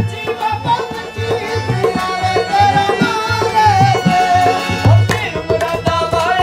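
Live Punjabi devotional song: a harmonium playing with a man singing over it, and a steady rhythm of deep hand-drum strokes in tabla style.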